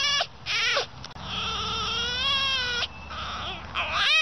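Marmots squealing as they wrestle: a couple of short high squeals, then one long wavering whine of about a second and a half, then more squeals rising in pitch near the end.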